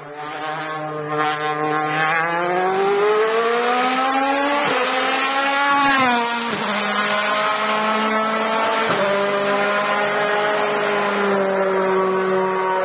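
Race car engine accelerating hard past, its note climbing in pitch, with a sharp drop about six and a half seconds in and another break about nine seconds in as it changes gear, then running on as it pulls away.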